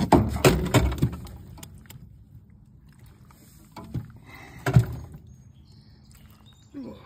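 Knocks and clatter of a largemouth bass being handled in a landing net inside a boat, busiest in the first second, with two more knocks about four and five seconds in.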